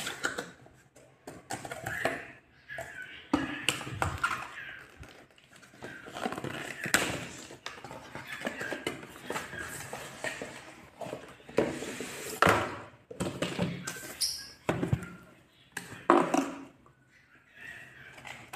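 Corrugated cardboard shipping box being opened and handled: flaps scraping and flexing, with irregular knocks and thunks as the boxed product is lifted out and set down.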